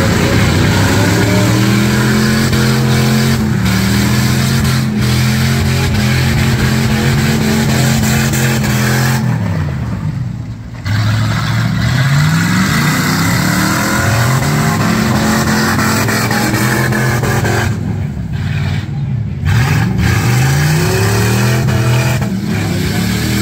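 V8 engines of demolition derby cars running hard and revving. The pitch repeatedly falls and climbs again as the drivers back off and accelerate. The engine sound drops away briefly about ten seconds in and again near nineteen seconds, then picks up once more.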